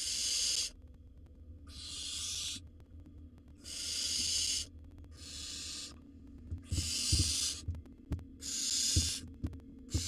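Barn owl nestlings giving their harsh hissing 'snore' calls, the begging call of young barn owls, as roughly one-second hisses about every couple of seconds. Soft knocks in the second half.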